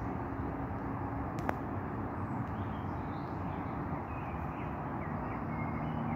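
Steady outdoor background rumble with a faint low hum, a few faint short bird chirps, and a single sharp click about a second and a half in.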